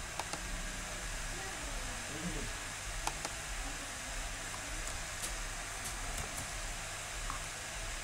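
Steady hiss and low hum of a computer microphone's room tone, with a few faint mouse clicks.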